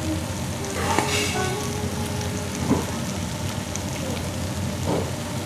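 Pork belly sizzling on a tabletop grill pan: a steady frying hiss, with a couple of short sharp clicks, the loudest about two and a half seconds in.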